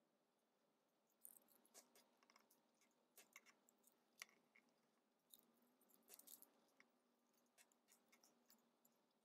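Faint, irregular small clicks and scrapes of a utility-knife blade shaving and trimming a 3D-printed plastic valve part, starting about a second in.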